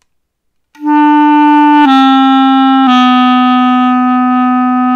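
Clarinet sounding a steady held E, then stepping down twice to the next two lower notes as fingers are added. It starts just under a second in, and the lowest note is held evenly.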